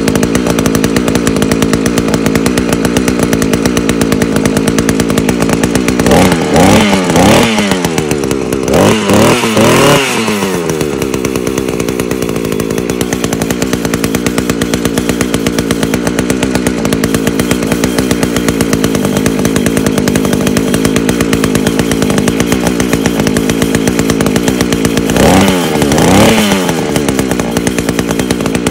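Small two-stroke engine of a brand-new 72cc earth auger idling steadily on its first run, revved up and back down several times about six to ten seconds in and again near the end.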